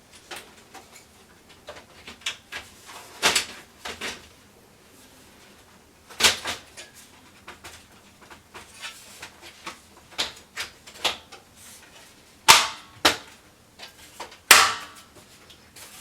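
Irregular clicks and sharp knocks of hands working on a computer case and its parts, a few of them loud snaps, as a 200mm case fan's installation is finished.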